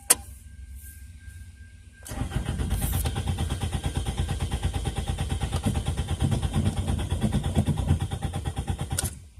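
A click, then about two seconds in the starter cranks the 2002 Toyota Corolla's 1.8-litre four-cylinder engine in a rapid, even pulsing for about seven seconds. The engine turns over but never catches, and the cranking stops: a crank-no-start that the owner wonders may be a failed fuel pump.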